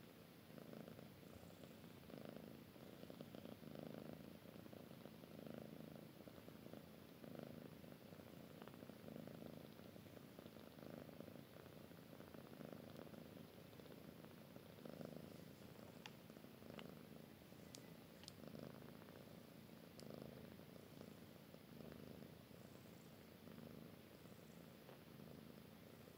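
A domestic cat purring softly, the purr swelling and easing about once a second with its breathing. A few faint clicks come about two-thirds of the way through.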